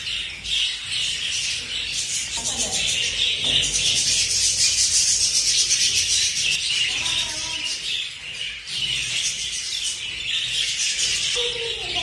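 A budgerigar colony chattering: many budgies chirping and warbling at once without a break, loudest around the middle.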